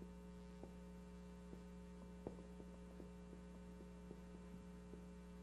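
Near silence: a steady electrical hum, with faint, irregular taps and scrapes of a marker writing on a whiteboard.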